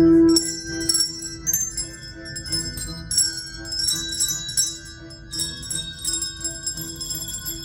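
Handbell choir playing: several bells struck together and left to ring, the loudest chord right at the start, with one low bell note returning again and again under shifting higher notes.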